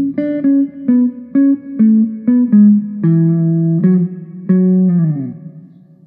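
Electric guitar playing a quick run of single plucked notes through a handmade auto-wah/envelope filter pedal, the filter sweeping each note. The last note slides down in pitch about five seconds in and rings out.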